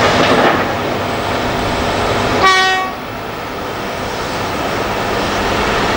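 Heavy earthmoving diesel machinery running, as a Liebherr R992 excavator loads a Cat 769C dump truck. A horn sounds once, briefly, about two and a half seconds in.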